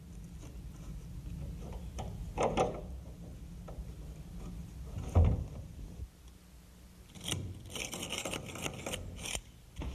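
Handling a brass door hinge leaf against the wooden jamb, with a couple of knocks, the loudest about five seconds in. From about seven seconds in comes the scratchy grinding of a screwdriver driving a screw back into the hinge leaf to hold a cardboard shim behind it.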